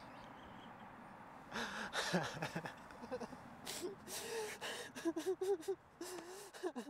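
A man crying: breathy, wavering wails with gasping breaths, turning to a string of short whimpering sobs in the second half.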